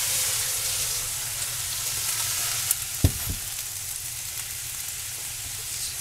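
Hot water sizzling and steaming in a very hot skillet as the pan is deglazed, the hiss slowly dying down. About three seconds in, two dull thumps as the skillet is set down on the glass-top stove.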